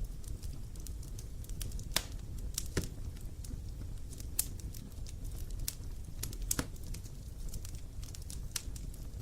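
Wood fire crackling: irregular sharp pops and snaps of burning wood, a few louder than the rest, over a steady low rumble.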